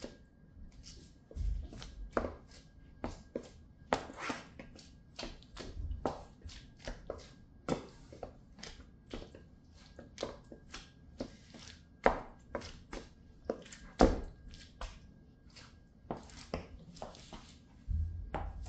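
Stiletto-heeled patent boots treading and stamping in crushed tomato pulp on a hard floor: quick, irregular heel clicks and taps mixed with wet squishing, with a few louder stamps.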